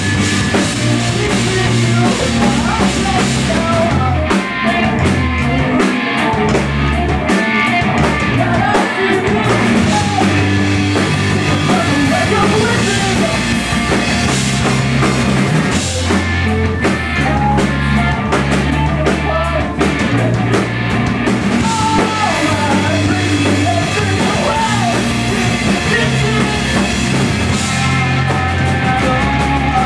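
A rock band playing live and loud: electric guitar, bass guitar and drum kit, with a singer's voice in the mix.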